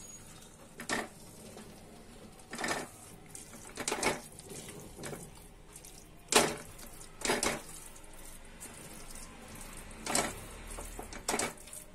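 Spatula stirring and scraping crumbled paneer and masala in a metal kadhai: irregular scrapes and knocks against the pan, with the sharpest knock about halfway.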